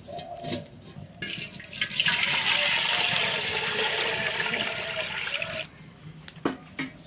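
Water poured from an aluminium jug into an aluminium cooking pot: a steady splashing stream for about four seconds, with a faint rising note as the pot fills, that stops suddenly. A couple of short knocks follow near the end.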